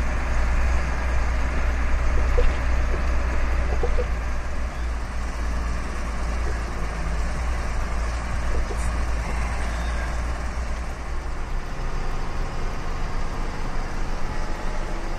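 IVECO 90-16 truck driving along a rough desert dirt track: steady engine and road rumble with small rattles. The deep rumble thins out about twelve seconds in.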